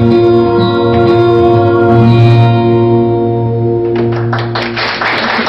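The sustained closing notes of a sanjo daegeum piece stop about four seconds in. The audience then starts clapping.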